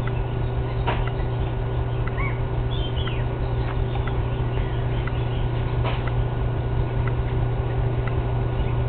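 Outdoor garden ambience: a steady low hum with soft ticks about once a second, and a few brief bird chirps about two to three seconds in.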